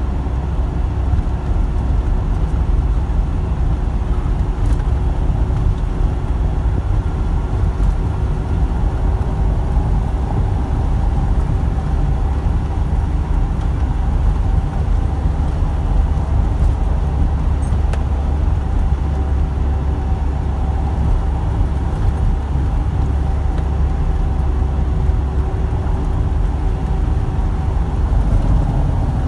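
Inside a truck cab while driving: the engine's steady low drone mixed with tyre and road rumble, at an even pace throughout.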